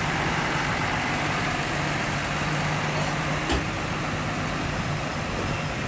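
Roadside traffic noise with a large vehicle's engine running at a steady low hum, and a single sharp click about three and a half seconds in. No horn sounds.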